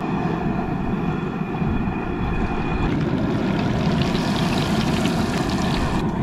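Propane burner under an outdoor deep fryer running steadily. About three seconds in, panko-coated halibut goes into the hot oil and the oil starts sizzling.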